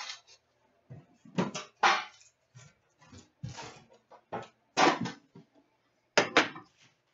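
Trading-card packs and a metal card tin being handled on a glass countertop: a string of short rustles, clicks and knocks at irregular intervals.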